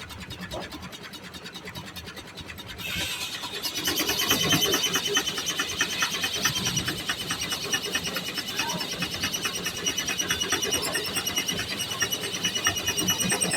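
Steam-powered sawmill running with a fast, even rhythmic beat. About three seconds in, it gets louder and higher-pitched as the saw cuts into a log.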